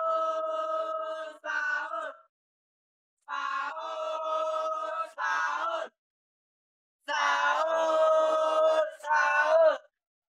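A voice chanting the Ramadan wake-up call "sahur, sahur" in a drawn-out sing-song, three times. Each call is a long held note followed by a shorter one. The call rouses people for the pre-dawn meal.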